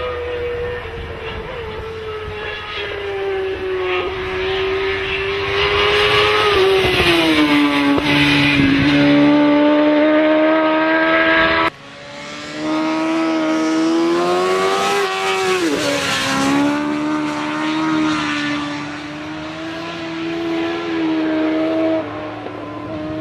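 Sport motorcycle engine running hard at high revs at highway speed, with wind rush. Its pitch sinks slowly about seven to nine seconds in and drops again about sixteen seconds in, and the sound breaks off abruptly and resumes about twelve seconds in.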